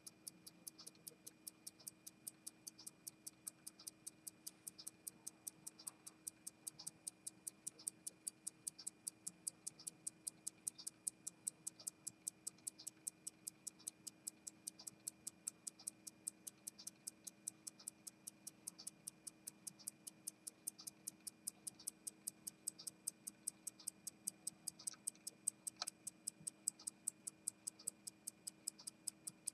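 Longines WWII US Army Air Forces chronograph pocket watch movement running, its escapement ticking evenly at about five beats a second.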